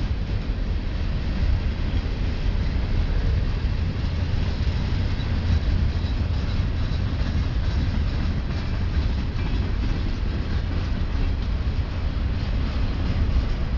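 A train rolling past on the rails: a steady, heavy rumble of wheels with some clacking, and no horn sounding.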